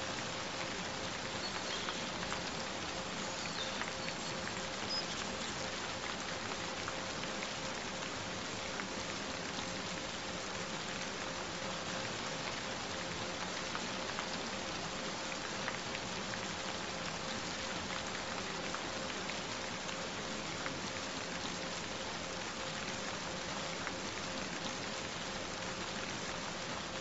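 Steady rain, an even hiss with faint scattered drop ticks, with a constant held tone underneath it, the added frequency tone of a binaural track.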